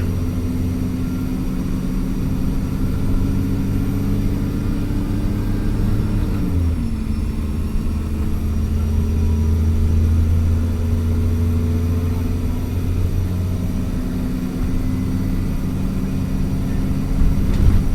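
Diesel engine of an Alexander Dennis Trident Enviro400 double-decker bus pulling under load. Its note climbs steadily, drops sharply at a gear change about six and a half seconds in, then climbs again and drops at another change near the end, with a thin high turbo whistle over it.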